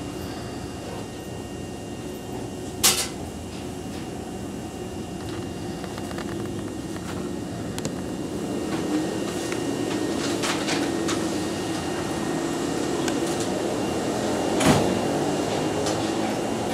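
Steady hum of a stationary Nishitetsu 2000 series electric train heard inside its driver's cab, growing a little louder in the second half. A sharp click comes about three seconds in, a few lighter clicks follow around ten seconds, and another sharp click comes near the end.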